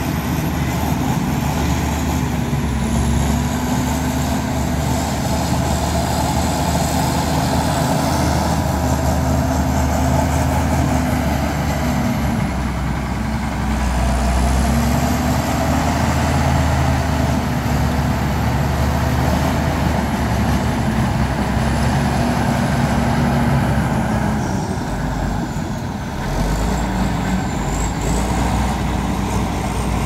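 Heavy diesel engine of earthmoving machinery working under load, its pitch rising and falling as it labours, with a brief drop near the end.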